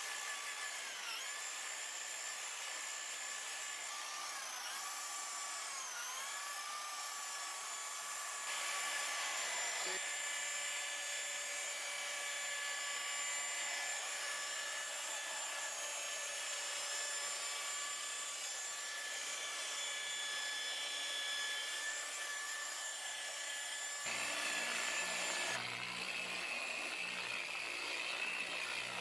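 Car paint buffer (polisher) running with a steady whine, its pitch dipping and recovering a few times as the pad loads against the paint. It is machine-polishing out scratches and marring in the clear coat. The sound changes abruptly a few times.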